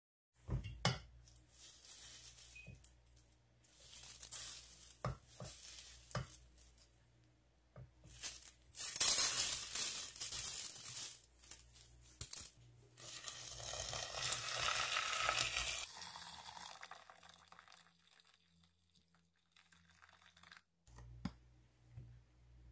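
Dry brown lentils tipped from a mesh strainer into a metal pot, rattling and rustling against it with several sharp knocks, followed by a longer stretch of rushing noise as water goes into the pot. The sound cuts away suddenly near the end.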